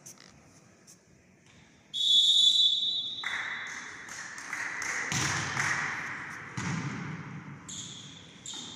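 Referee's whistle blown in one held blast about two seconds in, signalling the serve in a volleyball match. Then the ball is struck twice, two sharp hits about a second and a half apart, over voices calling in the echoing sports hall.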